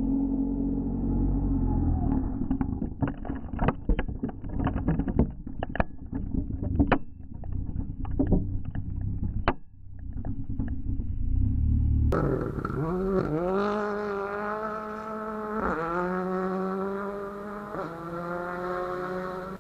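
A rally car's deep engine rumble with a rapid string of sharp cracks and pops. About two-thirds of the way through, a rally car engine accelerates hard, its note climbing and dropping back at each of three upshifts.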